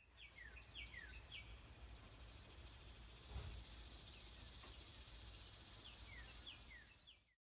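Faint rural ambience: small birds chirping in quick runs of short falling notes, at the start and again near the end, over a steady high insect drone and a low rumble.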